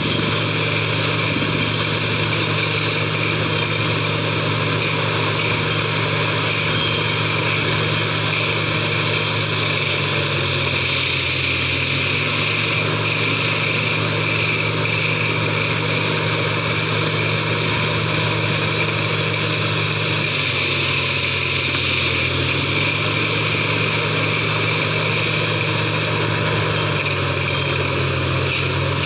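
Borewell drilling rig's engine running steadily with a hiss over it. Its pitch sags for a couple of seconds about a third of the way in and again about two-thirds of the way in, as the engine takes load, then recovers.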